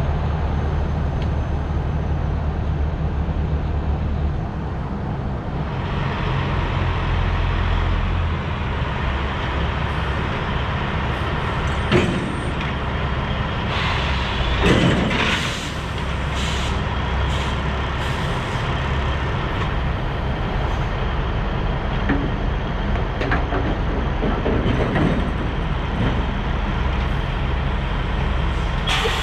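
Heavy diesel truck engine idling steadily, with a sharp metallic clank about twelve seconds in and a burst of air hiss a couple of seconds later, typical of air lines and the gooseneck on a detachable lowboy trailer being worked.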